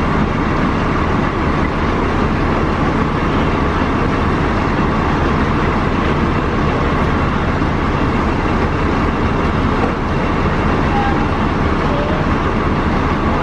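A fire engine running steadily: a loud, even engine rumble with a faint hum.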